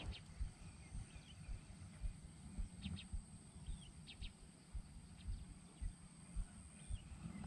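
Faint rural outdoor ambience: a few short bird chirps over a steady high-pitched insect-like hum, with soft irregular low thuds.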